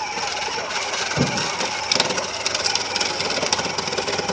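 Battery-powered ride-on toy ATVs' electric motors and plastic gearboxes whirring under load as the two pull against the chain between them, with a rapid clatter and a low thump about a second in.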